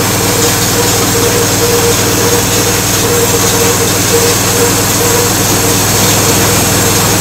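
A homemade bandsaw mill's small engine running steadily with a constant pitch, driving the band blade.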